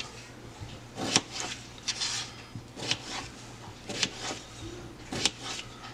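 Kitchen knife chopping red potatoes on a plastic cutting board: a sharp knock roughly once a second, five or so in all, as the blade goes through the potato and strikes the board.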